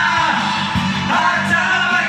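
Men singing along into karaoke microphones over the machine's backing track of an anime theme song.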